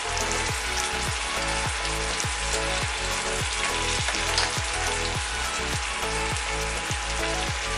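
Vegetables sizzling steadily in oil in a stainless steel kadai.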